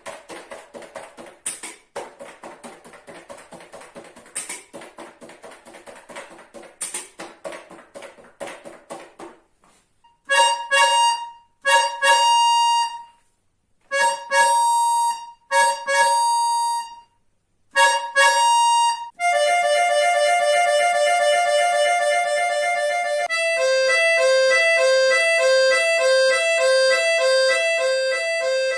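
An accordion imitating sound effects. First a typewriter: fast clicking keystrokes with three bell dings. Then short, repeated high chords in bursts, a seagull's cries. It ends with a two-tone siren: first a fast warble, then a steady high-low 'pin-pon' alternation about twice a second.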